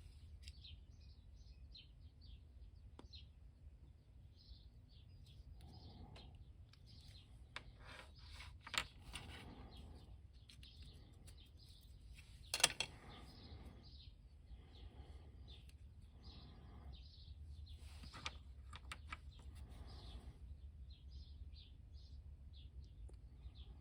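Faint background birdsong of short, repeated chirps over a low steady hum, with a couple of sharp small clicks about nine and thirteen seconds in.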